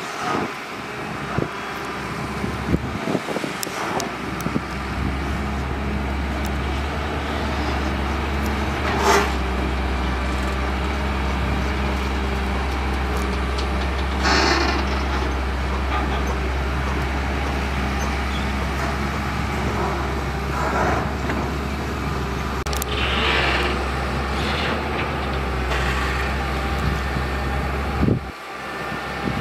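Caterpillar 320CL long-reach excavator's diesel engine running steadily under working load, its low hum stepping up about five seconds in and dropping off shortly before the end. A few brief louder noises come over it from the digging.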